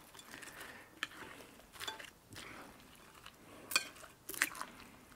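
A metal spoon stirring roasted potatoes into a creamy dressing in a glass bowl, with several short clinks of the spoon against the glass.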